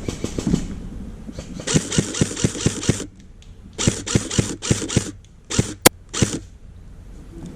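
Footsteps crunching through dry leaves and brush at about four steps a second, in two runs, then a few heavier steps and one sharp snap or click just before six seconds in.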